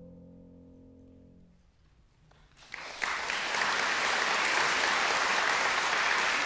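The grand piano's last chord dies away into a short hush, then audience applause breaks out about two and a half seconds in and quickly grows into steady clapping.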